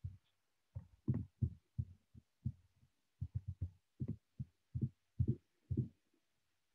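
Faint, muffled clicking and tapping from a computer mouse as the document is scrolled: short irregular taps, several a second, each cut off sharply by the call's noise gate.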